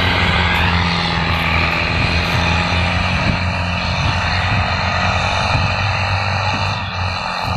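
Belarus 510 tractor's diesel engine running at a steady speed: a deep, even drone with a brief rising whine near the start.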